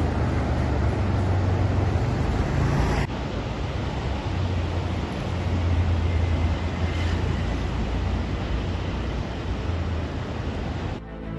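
Sea surf rushing steadily, with wind rumbling on the microphone. There is a short break in the sound about three seconds in.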